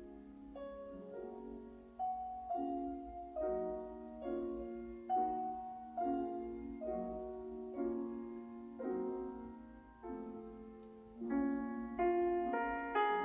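Background piano music: a slow, gentle melody of single struck notes, each fading away, over a held low note. The playing grows louder and busier near the end.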